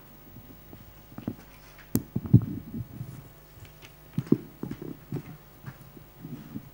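Microphone handling noise and footsteps on a stage: scattered low thumps and knocks, with a sharp click about two seconds in.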